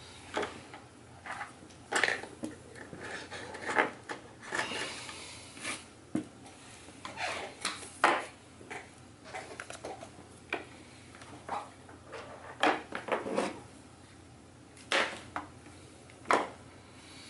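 Irregular clicks, taps and knocks of a screwdriver and laptop parts being handled and set down against an opened MacBook Pro's aluminium case, with a few sharper knocks scattered through.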